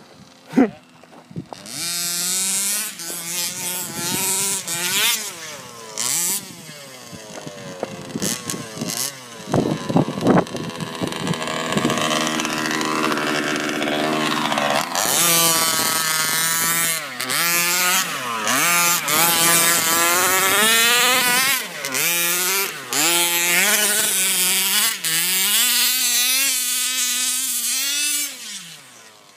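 OBR 30.5cc full-mod two-stroke engines of 1/5-scale gas RC buggies revving hard as they run over dirt, the pitch rising and falling over and over. The sound dies away near the end.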